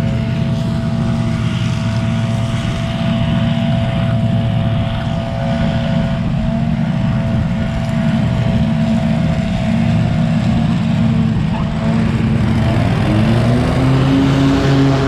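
Small engines of lawn equipment running steadily, among them a Scag V-Ride stand-on mower. Near the end one engine rises in pitch as it revs up.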